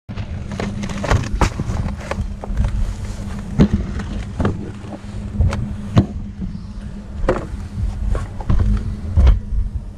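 A vehicle engine runs with a steady low hum, under a string of irregular knocks and clatters.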